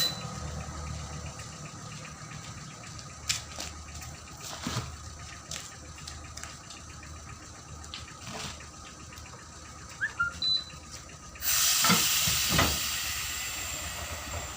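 A low background hum with a few scattered clicks and knocks. Then, about eleven and a half seconds in, a loud hiss starts suddenly and slowly fades.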